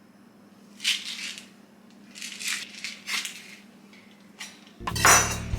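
Dry popcorn kernels rattling in their container, in three short bursts about a second apart, with a louder burst near the end.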